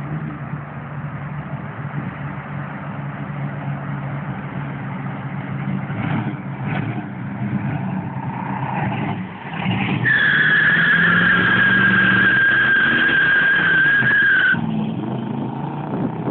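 Classic Oldsmobile's engine rumbling as it rolls up and passes close, then the rear tyres squeal in one loud, steady screech for about four seconds as the car lights them up and smokes them. The squeal cuts off suddenly and the engine keeps pulling as the car drives away.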